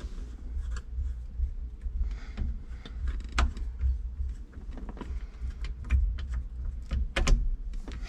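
Irregular clicks, taps and light knocks of tools and small parts being handled while taking apart a car's steering column and turn signal switch wiring.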